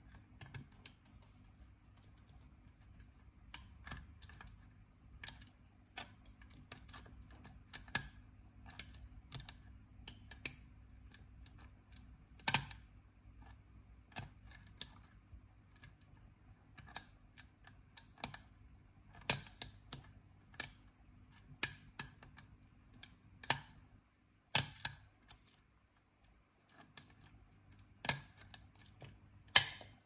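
Lock-picking tools clicking and scraping irregularly in a Master Lock 9140 padlock's pin-tumbler keyway as it is picked, with a faint steady low hum beneath.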